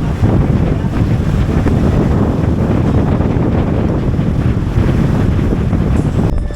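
Wind buffeting the microphone on a small boat at sea, over the rush of the sea and waves, a dense low rumble that breaks off abruptly near the end.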